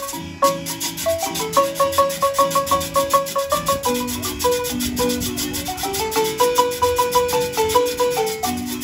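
Live marimba music: a wooden marimba with resonator tubes struck with mallets, playing a quick melody of rapidly repeated notes. Acoustic guitars accompany it, and a metal scraper keeps an even scratching rhythm.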